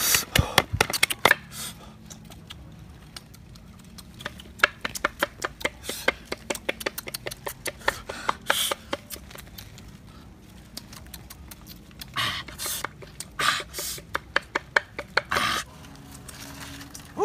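A bamboo pestle pounding red chili peppers in a wooden bowl: a long, irregular run of sharp wooden knocks, several a second. Near the end come a few louder, noisier bursts.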